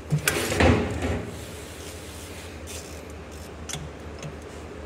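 A ratchet with a crow's-foot wrench being worked in among an excavator's hydraulic hoses and line fittings. There is a short clatter and rubbing of metal and hoses in the first second, then a few light metal clicks over a steady low hum.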